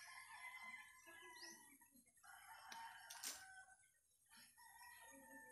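Faint rooster crowing: a few drawn-out crows, with a few sharp clicks about three seconds in.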